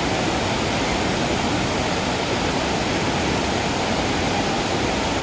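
Kynrem Falls' waterfall rushing, a steady, dense roar of falling water with no change in level.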